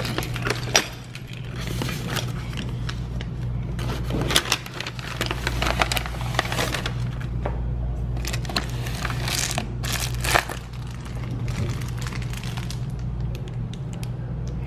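Keys clicking in the lock of a metal post office box and the box being opened, then a hand rummaging inside and handling a bubble mailer: scattered clicks, scrapes and crinkles over a steady low hum.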